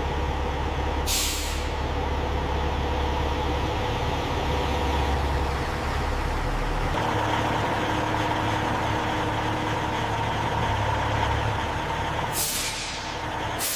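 Heavy truck engine running steadily, its note shifting about seven seconds in, with a short hiss of air brakes about a second in and a longer hiss near the end.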